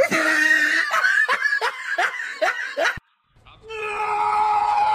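A person laughing in quick falling bursts, about three a second, that cut off suddenly; after a short silence a steady held tone begins.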